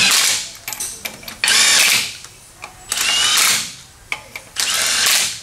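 Cordless grease gun running in four short bursts, each about half a second, pumping grease into the front suspension's ball-joint fittings.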